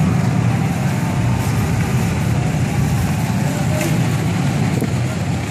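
Street traffic: motorbikes and cars running as they pass slowly, making a steady low engine rumble.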